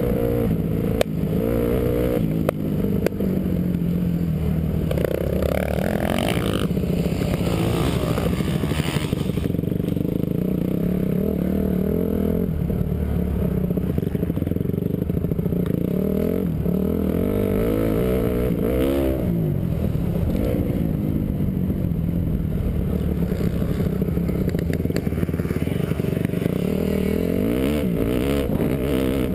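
Honda CRF450 four-stroke single-cylinder motocross engine heard from the rider's helmet, ridden hard on a dirt track. The engine note rises and falls again and again as the throttle opens and closes through gear changes and corners.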